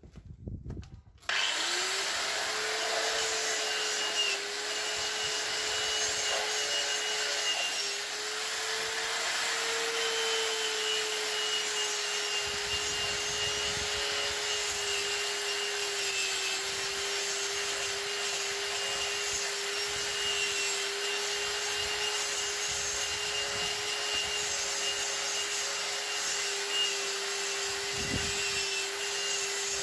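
Electric angle grinder switched on about a second in, spinning up with a short rising whine, then running steadily with its disc grinding along a steel bar.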